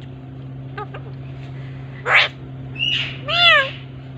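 Alexandrine parakeets calling: a short harsh screech about two seconds in, then two arched, rising-and-falling squawks, the second and loudest about three and a half seconds in.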